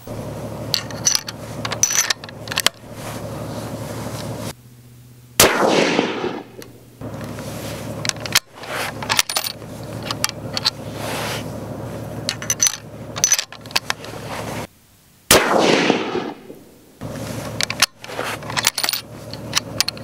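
Two rifle shots from a scoped bolt-action hunting rifle, about ten seconds apart, each a sharp crack with an echo trailing off for a second or so. Between and after them come the smaller metallic clicks and clacks of the bolt being worked to eject the case and chamber the next round.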